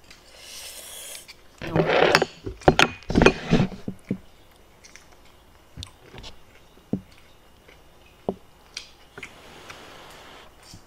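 A person slurping and eating ramen noodles: a few noisy slurps in the first three or four seconds, loudest around two to three seconds in, then scattered sharp clicks.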